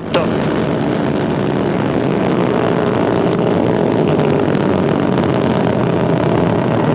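Rocket engines at full thrust during liftoff: a loud, steady rumbling noise that starts abruptly at the very beginning and holds evenly.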